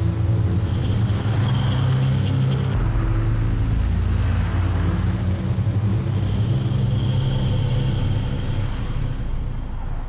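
Busy road traffic: car and bus engines running steadily with a low rumble.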